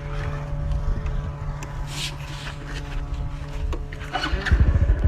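Steady drone of several held tones from the flute set on a flying kite, sounding like a ship's horn. Near the end a motor vehicle engine comes up close.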